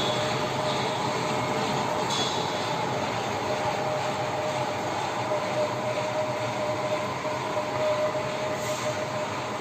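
Metal lathe running steadily while machining a steel separator pipe, a constant mechanical noise with a steady whine through it.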